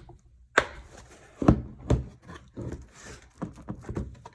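Hands handling a torque wrench's molded plastic case and its plastic wrapping: a series of sharp knocks and clicks with light rubbing.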